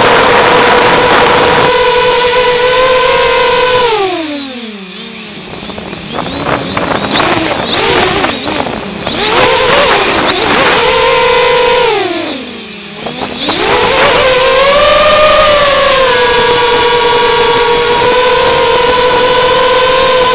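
An FPV quadcopter's brushless motors and propellers whine at a steady pitch, heard from the drone's own camera. About four seconds in the whine drops sharply as the throttle is eased off, then wavers and climbs back. It dips low again around twelve seconds before returning to the steady hover-to-cruise whine.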